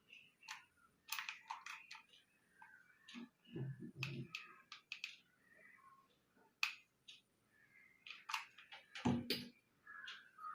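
Scattered small clicks and taps of hard plastic being handled while a glue gun fixes a plastic bottle cap in place, with two duller knocks, one about three and a half seconds in and one near the end.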